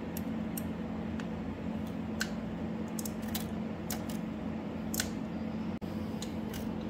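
Light, irregular metallic clicks and ticks of a hand tool tightening a knock-sensor bolt on a VQ37VHR engine block, over a steady low hum.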